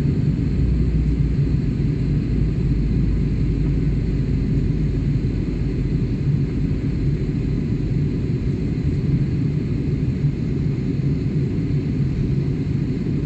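Steady low rumble of an airliner cabin in flight: jet engines and airflow heard from inside the cabin, with a faint hiss over it.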